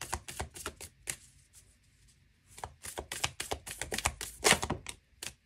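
A deck of tarot cards being shuffled by hand: quick runs of papery card-on-card clicks and slaps, stopping for about a second and a half in the middle, with a louder slap shortly before the end.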